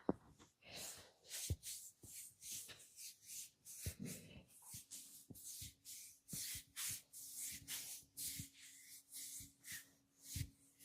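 Hands rubbing skin and hair in a massage: a run of short rubbing strokes, about two a second, with a few soft thumps among them.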